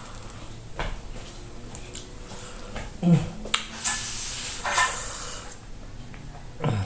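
Cutlery clicking and scraping against a plate while eating, with a louder clatter about three seconds in and another near five seconds.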